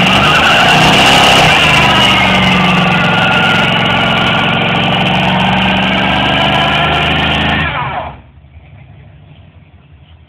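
Pickup truck doing a burnout: the engine is held at high revs while the spinning rear tyre squeals. The sound cuts off suddenly about eight seconds in.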